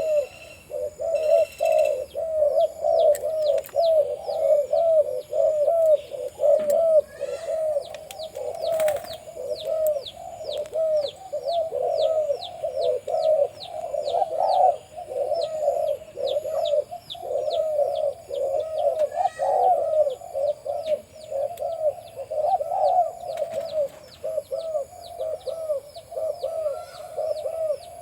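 Spotted doves cooing without pause, many coos overlapping, including a breeding male's deep coo. A rapid row of thin, high, falling chirps from another bird runs above them.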